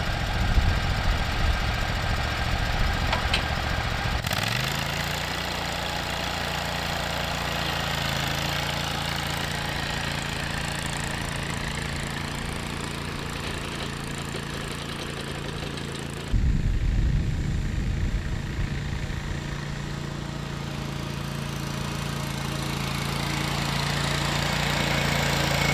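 Scag zero-turn mower engine running while towing a plug aerator across a lawn. The engine rises in pitch about four seconds in and holds steady; about two-thirds of the way through the sound drops suddenly back to a lower rumble, then climbs to the same steady pitch again.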